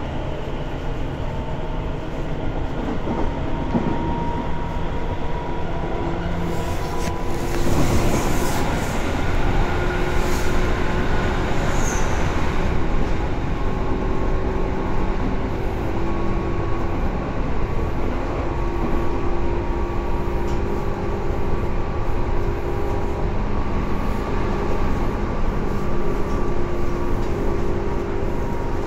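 Tobu 10030 series electric train running at speed, heard from inside the car: steady rumble of wheels on rail with the hum of the traction motors and their equipment. The hum changes pitch about seven seconds in, with a louder rush just after and a brief high squeal about twelve seconds in.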